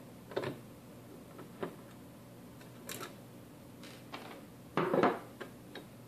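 Small clicks and taps of a screwdriver working a screw out of the mini PC's metal case, a few scattered over several seconds. Near the end comes a louder knock and rattle as the screwdriver is put down on the wooden table and hands take hold of the metal case.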